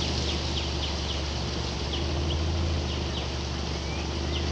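A boat's motor runs at a steady pitch, with water rushing past the hull. Many short high bird chirps sound over it.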